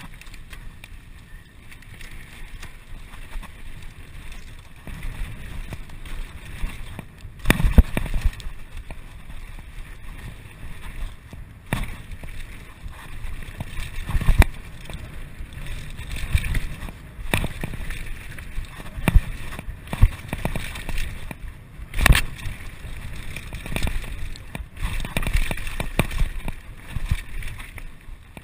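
Mountain bike riding fast down a dirt trail, heard from a camera mounted on the bike: a rough, uneven rumble of tyres on dirt and wind on the microphone, broken by sharp knocks and rattles as the bike hits bumps. The loudest knocks come about eight and twenty-two seconds in.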